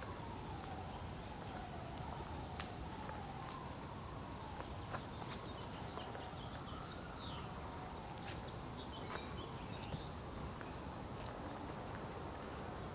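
Outdoor street ambience: a steady high insect drone, with scattered short bird chirps and a faint tone slowly wavering up and down underneath.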